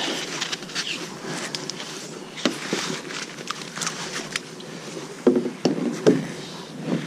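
Scattered clicks, taps and rubbing from hands handling a crab pot's rope and foam float on a paddle board, with a few brief low voice sounds about five to six seconds in.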